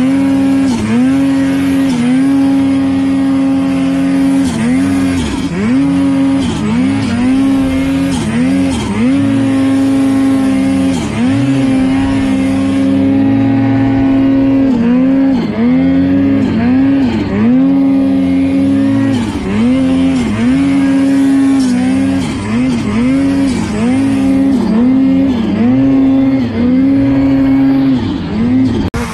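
Ski-Doo snowmobile engine revving up and down over and over as the rider works the throttle through deep powder, the pitch dipping briefly and snapping back up many times.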